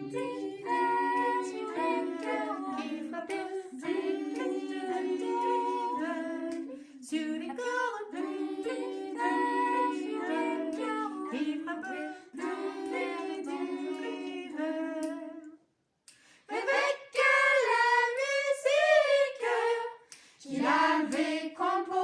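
Children's choir singing. The singing stops briefly about three-quarters of the way through, then comes back louder.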